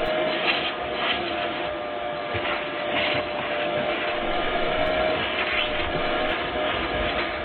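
Vacuum cleaner running steadily, its motor giving a constant whine over the rush of air, with a few short hissy swells in the suction.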